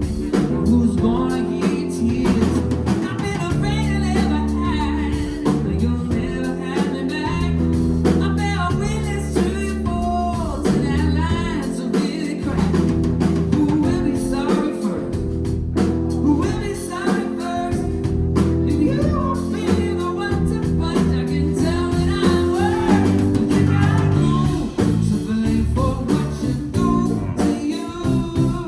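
Live band performance: a lead vocal sung over guitar and bass.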